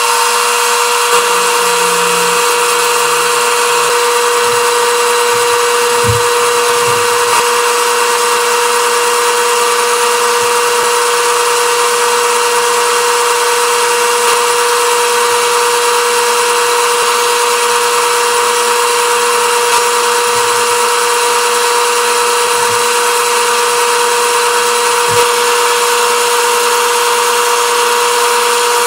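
Wood lathe running with a steady whine while a hand-held turning chisel cuts the spinning cedar and blue-epoxy pen blank.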